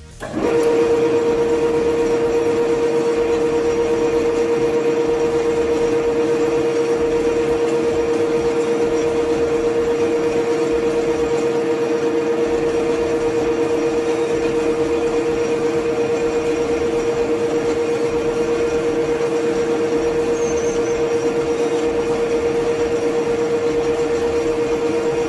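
Metal-turning centre lathe starting up about half a second in and running at a steady speed, its motor and gearbox giving a constant hum with a strong mid-pitched tone, while a centre drill in the tailstock is wound into the spinning workpiece.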